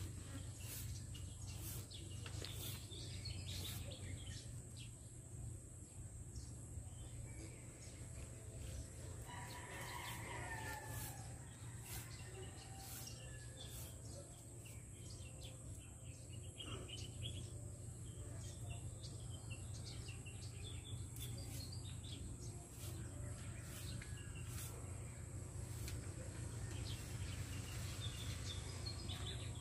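Rural outdoor background: small birds chirping and a rooster crowing once about ten seconds in, over a steady low hum with scattered faint clicks.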